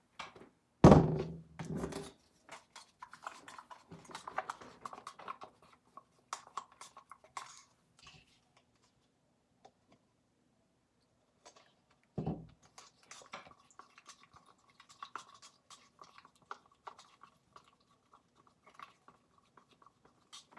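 Handling of plastic paint cups and a wooden craft stick: a couple of loud thunks about a second in and another about twelve seconds in, with scattered light clicks and scrapes as paint is poured between cups and stirred with the stick.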